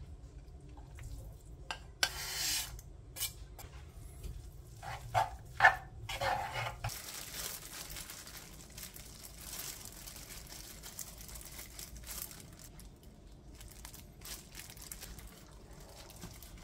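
Kitchen food-prep handling sounds: scattered light clicks and knocks, with brief rustling about two seconds in and again around six seconds, then quieter handling.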